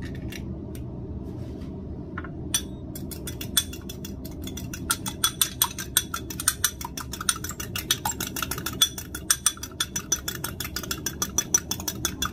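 Fork beating a raw egg in a small glass bowl: rapid, sharp clinking of the tines against the glass, starting about three seconds in after a few separate taps as the egg is cracked. A steady low hum runs underneath.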